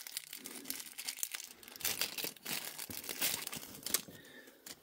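Small clear plastic bag crinkling in the fingers as it is handled and opened, a run of short irregular crackles.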